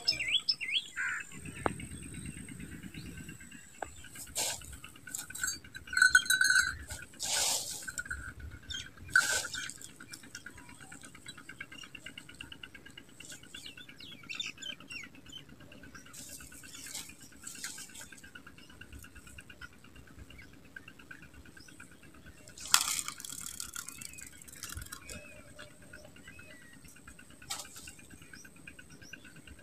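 Quiet outdoor ambience with a faint steady background and scattered short knocks and rustles of fishing gear being handled on stony ground.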